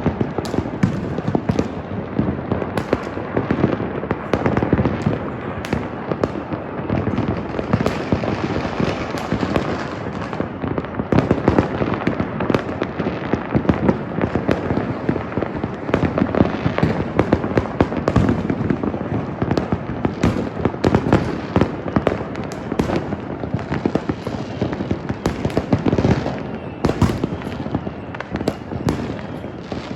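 Fireworks and firecrackers going off in a dense, continuous barrage: countless overlapping bangs and crackles with no pause.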